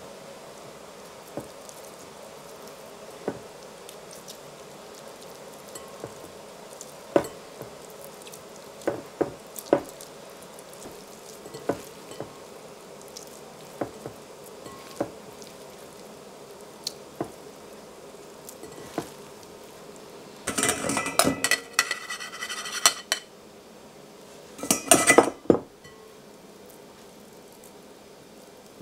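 Hands crumbling a block of tofu in a glass bowl, with scattered light clicks against the glass. About twenty seconds in come two louder bursts of clattering, glass bowl and stainless steel mesh strainer knocking together as the crumbled tofu is tipped and scraped into the strainer.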